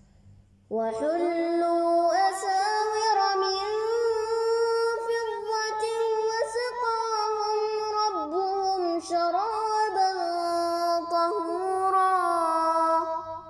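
Melodic Quran recitation by a high voice: one long drawn-out phrase, starting about a second in and ending just before the end, with ornamented turns in pitch.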